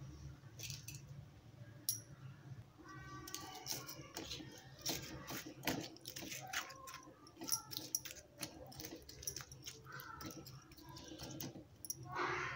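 Steel spoon stirring thick yogurt-marinated vegetables in a ceramic bowl: irregular clinks and scrapes of the spoon against the bowl.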